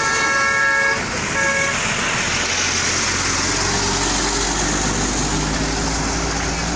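A vehicle horn sounds, held until about a second in, then gives one short second honk. Then come the rush of passing traffic and a passing vehicle's engine.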